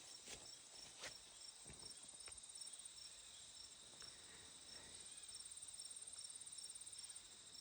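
Faint chorus of crickets trilling steadily, with one chirping regularly about twice a second; a few faint clicks break in.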